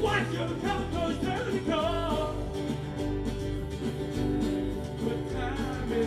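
Live band playing amplified on a small stage: electric and acoustic guitars over a bass line, with a voice singing in the first couple of seconds and again near the end.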